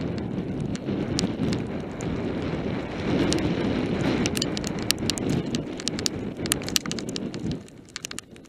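Mountain bike tyres rolling fast over a loose gravel trail, a dense rumble full of sharp clicks and rattles. The rumble drops away about three-quarters of the way through, leaving scattered clicks.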